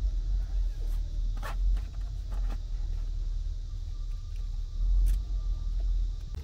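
Low rumble throughout, with a few light clicks and rustles as a plastic multi-hole cable gland is worked over wires in gloved hands.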